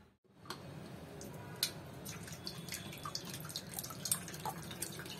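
Groundnut oil poured from a plastic bottle into an empty stainless steel pot: irregular drips and small splashes with light ticks, starting about half a second in.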